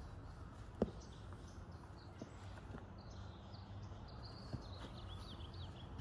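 Outdoor ambience: a steady low hum, small birds chirping in quick high notes through the second half, and a single sharp tap a little under a second in.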